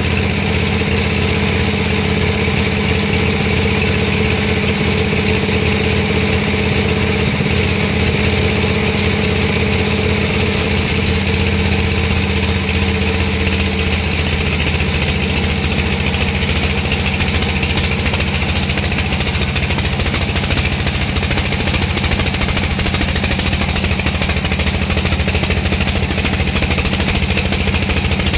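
An engine running steadily at constant speed. Its sound changes about ten seconds in, when a higher hiss joins, and again a few seconds later, when the low hum shifts.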